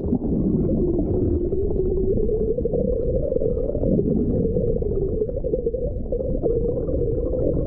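Flowing river water heard from underwater: a steady, muffled rush with the high tones cut off.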